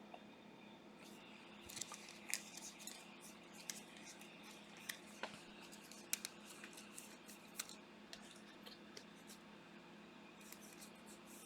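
Faint handling of trading-card packs and cards: scattered sharp crinkles and ticks of foil wrappers and card stock, over a low steady hum.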